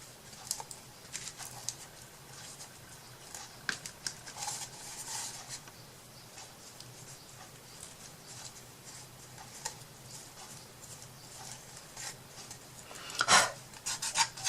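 Brush strokes applying Mod Podge over a wooden clock box: short scratchy swishes and light taps, with a louder clatter near the end.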